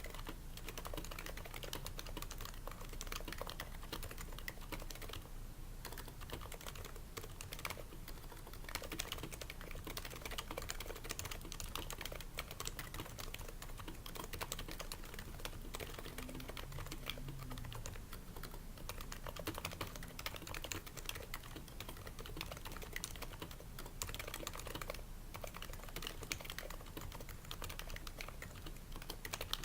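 Continuous typing on an HHKB Pro 2 keyboard with Topre switches, a dense stream of keystrokes with a few brief pauses. The switches are fitted with o-rings to dampen the keystrokes, the slider rails are lubed, and the case is lined with shelf liner.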